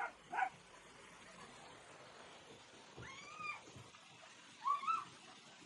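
A cat meowing: a drawn-out meow that rises and falls about three seconds in, then two quick meows near the end. Two short calls come right at the start.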